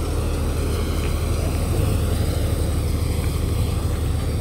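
Mahindra tractor's diesel engine driving a Vishwakarma thresher, both running steadily under load while threshing fenugreek: a continuous low drone with an even rushing noise over it. The machine is running smoothly.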